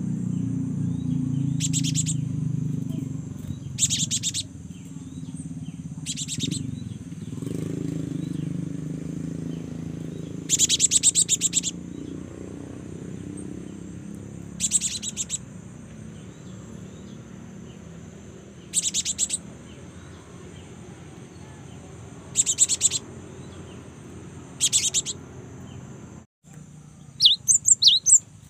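Young cinereous tit (gelatik batu) singing in short bursts of rapid, high-pitched chirps repeated every two to four seconds, with one longer run about ten seconds in. Near the end it gives a quicker, more varied twitter.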